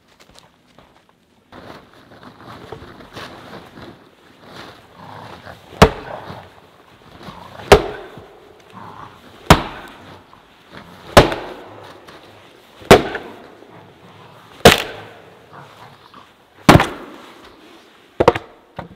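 An axe splitting wood on a chopping block: sharp, loud chops about every two seconds, eight in all, the last a quick double.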